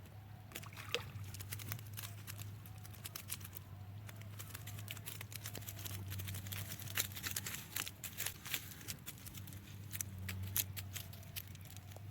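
Water splashing and trickling with many irregular small clicks and slaps, over a steady low hum.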